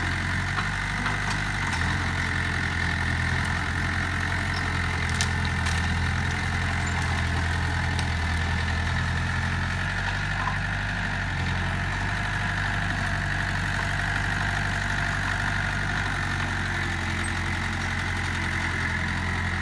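Diesel engine of a Mitsubishi BD2F crawler bulldozer running steadily at an even speed.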